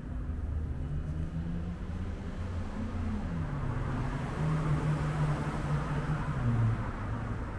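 City street traffic: a vehicle engine's low hum with its pitch shifting, dipping about three seconds in, and road noise that swells around the middle.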